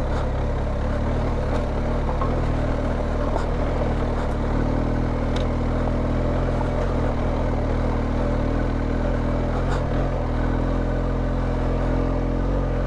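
BMW R1250GS's boxer-twin engine running at steady low revs on a slow off-road ride, with a few faint ticks over it.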